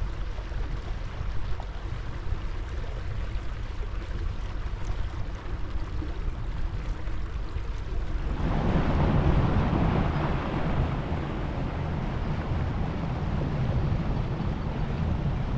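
Boat underway: a steady low motor rumble with rushing water and wind noise, which grows louder and fuller about eight seconds in.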